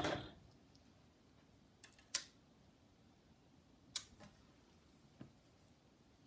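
MO-6700 series overlock serger running and stopping just after the start, followed by a few scattered sharp clicks as pins and fabric are handled between seams.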